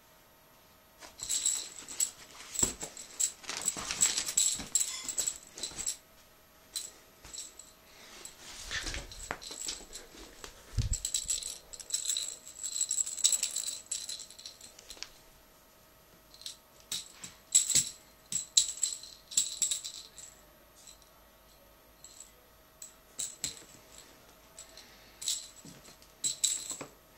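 A small rattling, jingling toy shaken and batted in irregular bursts during play with a cat, with a few short pauses between bursts.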